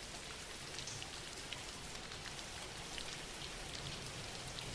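Steady soft rain with scattered faint drops pattering on a surface.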